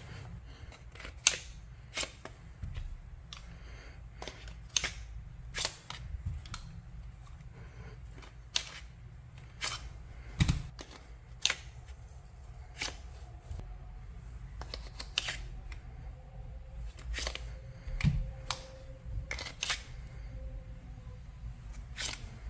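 Sharp, irregular plastic clicks and snaps, about one a second, as a Recover Tactical G7 polymer holster is handled. A light-equipped pistol is seated in it and the holster's parts are fitted. A steady low hum runs underneath.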